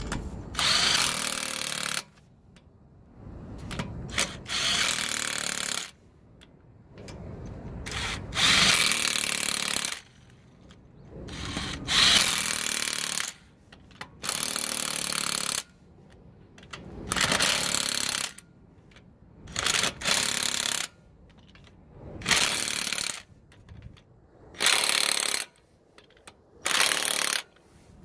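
Cordless impact wrench tightening a wheel's lug nuts, running in about a dozen bursts of one to two seconds each with short pauses between.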